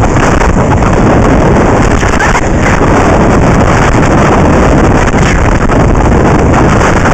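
Steady, loud wind rush buffeting the microphone of a camera worn by an inline skater moving at speed, mixed with the rolling rumble of skate wheels on asphalt.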